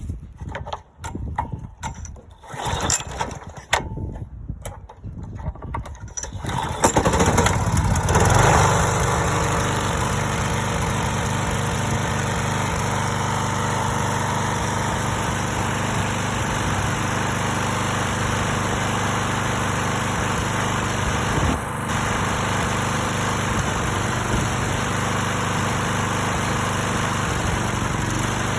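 Stiga Pro 48 lawn mower's Briggs & Stratton engine sputtering unevenly for several seconds, catching about seven seconds in, then running steadily with one brief stumble about three quarters of the way through. This is the misfire that persists despite a new tank, air filter and spark plug and a rebuilt carburettor.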